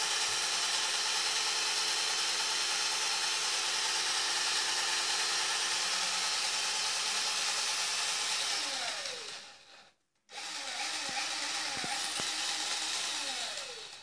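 Cordless drill spinning a washing machine drain pump used as a generator, with a steady motor whine. About nine seconds in the whine falls in pitch and stops, starts again a moment later, and winds down near the end.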